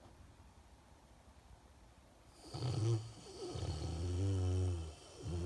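Snoring: about two and a half seconds in a short snore, then a longer one with a steady low buzz, and a brief third just at the end.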